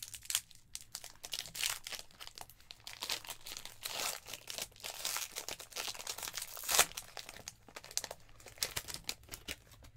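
Foil wrapper of a 2020 Donruss football card pack crinkling and tearing as it is pulled open by hand, in a run of irregular crackles, the sharpest one about seven seconds in.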